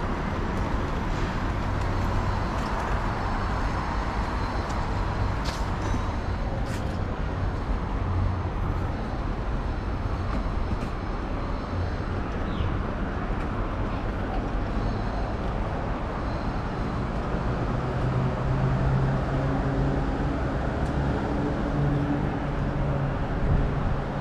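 Steady city traffic rumble of passing vehicles, with a low hum that grows stronger in the last few seconds.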